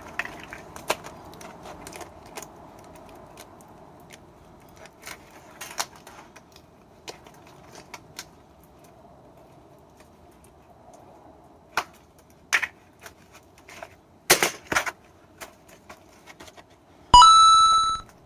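Scattered clicks and clinks of scrap metal being handled, a few of them sharper knocks, then near the end one loud electronic beep lasting just under a second.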